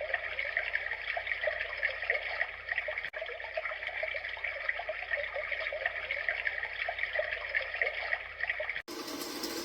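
Recorded babbling-stream nature sound played through the alarm clock's small built-in speaker: a thin, even trickle of water with little bass. It drops out for an instant about three seconds in and cuts off sharply near the end, where a different, steadier sound takes over.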